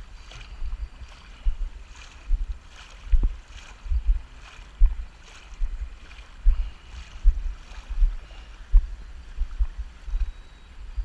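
Rowboat being rowed through water: oars dipping and pulling in a steady rhythm, a splash and a low knock with each stroke, a little more than one a second.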